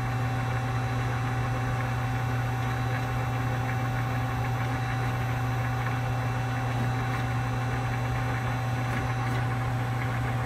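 Hyundai Hit-160M CNC lathe running through a program: a steady mechanical hum with a strong constant low drone and a thin steady whine above it.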